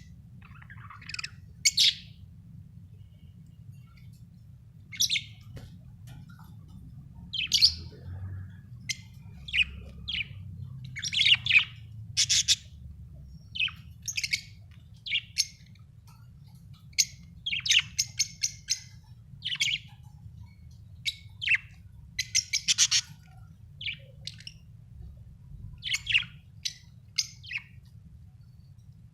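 Budgerigar chirping: short, irregular high chirps and squawks, now single, now in quick runs of several notes.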